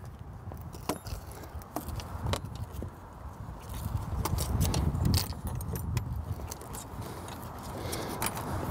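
Light clicks and scraping from hands working a popped-out cord back in at the corner of a pop-up camper's roof, a handful of small sharp clicks scattered through, over an uneven low rumble that swells about halfway in.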